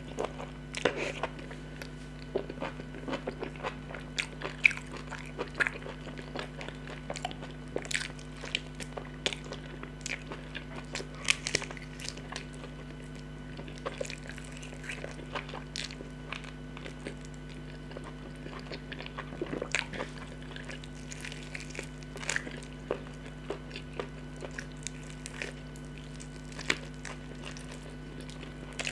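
Close-up mukbang eating sounds: biting and chewing meat off a chicken drumstick, with wet mouth clicks and smacks coming irregularly, a few at a time.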